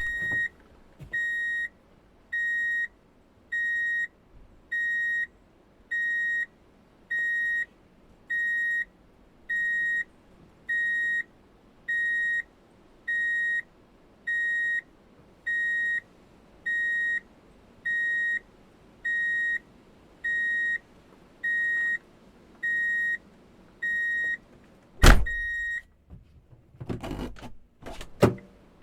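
Vehicle's reverse-gear warning beeper sounding a steady single-pitched beep about once every 1.2 seconds, about twenty times. A loud clunk stops the beeping, followed by a few knocks and a sharp thump near the end.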